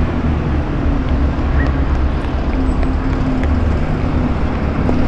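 Outdoor street ambience: a constant low rumble like traffic, with a steady hum coming in about halfway through and a few faint ticks.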